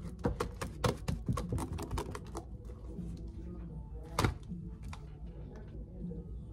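Homemade slime being squeezed and stretched by hand, giving a quick run of small clicks and crackles, with one louder snap about four seconds in.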